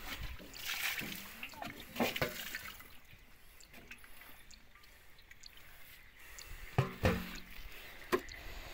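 Small drips and splashes of water in an aluminium pot holding live caught fish, with a few sharp knocks, loudest about seven seconds in.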